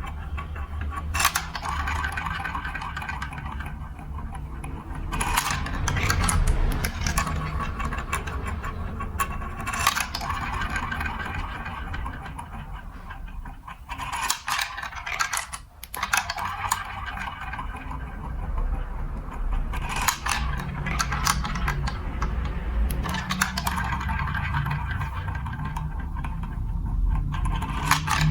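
Marbles rolling and clattering through a plastic building-block marble run: a continuous low rolling rumble with a run of sharp clicks and knocks as they hit the track pieces.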